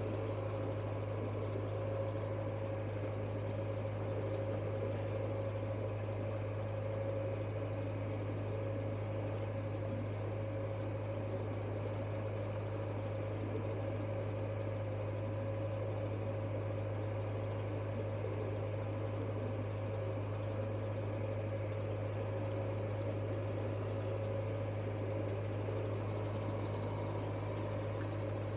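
Narrowboat's diesel engine running steadily at cruising speed, a constant low drone with a steady higher tone over it.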